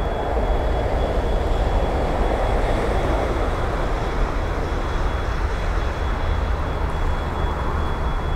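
Distant rumble of an approaching locomotive-hauled train, steady and unbroken, with a thin high whine held throughout.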